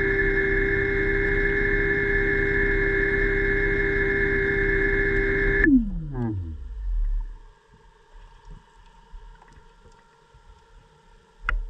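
Underwater scooter (DPV) electric motor and propeller whining steadily underwater, then switched off a little past halfway, its pitch sliding down as it spins down. After that it is quiet, with faint ticks and a short sharp noise near the end.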